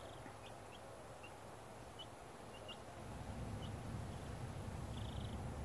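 Faint, short peeps from two-week-old White Leghorn chicks, scattered about a dozen times, with a low rumble swelling in the background from about halfway through.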